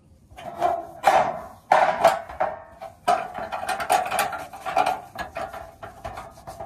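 Foam polishing pad scrubbed back and forth by hand over a bare sheet-metal grille while working in metal polish, in a run of uneven rubbing strokes that fade near the end.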